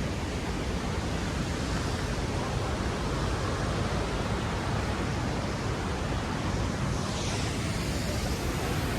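Steady rush of a flowing creek, an even wash of water noise with no pauses.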